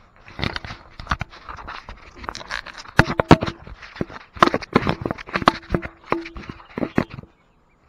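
Camera handling noise: a run of sharp knocks and clicks with scraping and rubbing in between as the camera is moved about and set in place, stopping shortly before the end.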